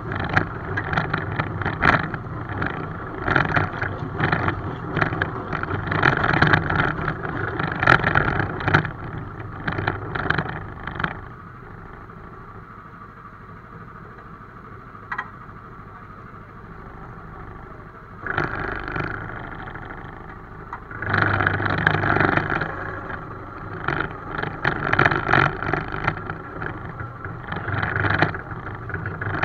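Miniature railway locomotive running on 7¼ inch gauge track, its wheels rumbling and clattering unevenly over the rails. The clatter drops to a quieter steady sound for several seconds in the middle, then picks up again.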